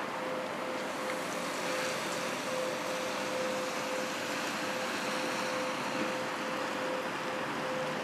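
A steady rushing drone with one constant mid-pitched tone running through it, pulsing slightly: an unexplained droning noise that the recordist suspects is some kind of equipment.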